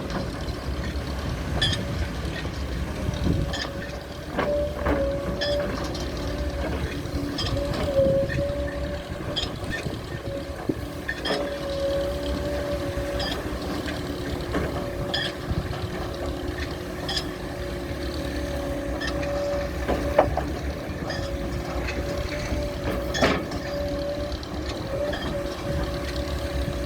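SANY SY200C hydraulic excavator's diesel engine running under load, with a steady whine and scattered sharp knocks.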